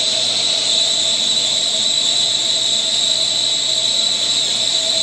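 Track 1630 lathe taking a turning cut along Z under power feed at 6 inches a minute: the tool cutting the spinning workpiece with a steady high-pitched whine over a lower steady hum from the running spindle.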